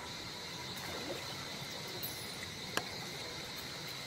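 Insects chirring steadily at a high pitch, with one sharp click near the end.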